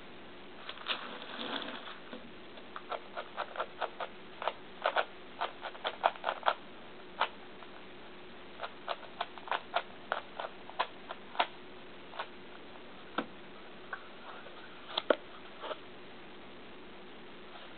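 Plastic 3x3x3 speed cube being handled and turned: sharp clicking layer turns in quick, irregular runs, with a short rustle about a second in.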